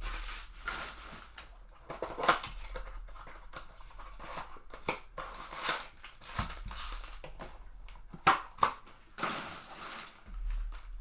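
Trading-card packaging being handled and opened: rustling and crinkling plastic and cardboard, with short sharp tears and light knocks throughout.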